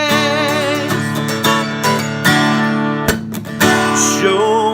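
Acoustic guitar strummed in the key of D, steady chord strokes between sung lines, with a held wavering sung note dying away in the first second.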